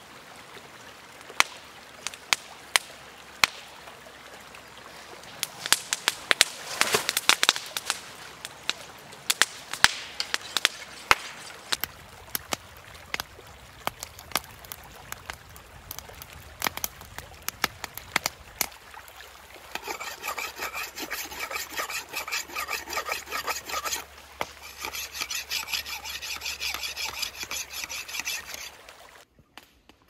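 Wood campfire of sticks and branches crackling, with sharp pops and snaps that come thickest a few seconds in. Later come about nine seconds of rapid, rhythmic rasping strokes with a short break midway.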